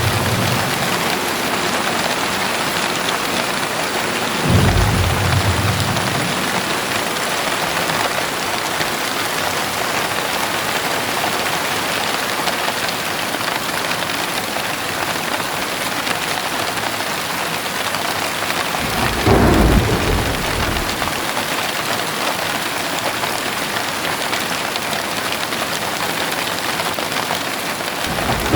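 Steady heavy rain hissing, with short low thunder rumbles about four and a half seconds in and again about twenty seconds in.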